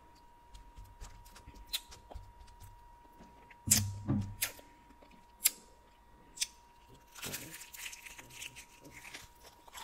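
Close-miked eating sounds: a few soft clicks and a knock with crackles about four seconds in as the food is handled. From about seven seconds in, crackly biting and chewing of hot-sauced pizza and fried chicken.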